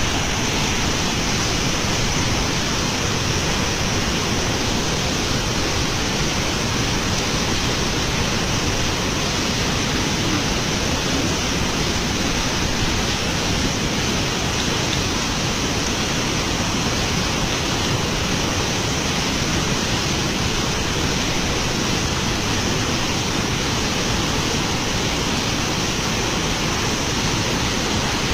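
River water rushing: a steady, even noise of fast-flowing water with no breaks.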